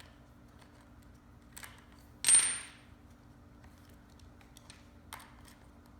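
A few light handling clicks and, about two seconds in, one sharp metallic clink: a small metal object dropped or set down on a hard surface, ringing briefly before it dies away.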